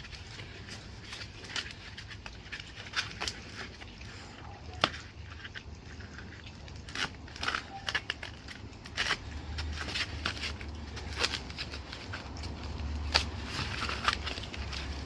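Plastic packaging wrap being pulled and stripped off by hand: irregular crinkling and crackling with sharp clicks.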